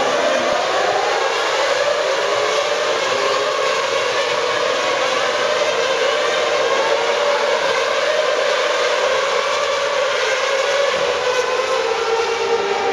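Many 2.4-litre V8 Formula One engines screaming at high revs as the field races round the circuit, their overlapping wails rising and falling in pitch.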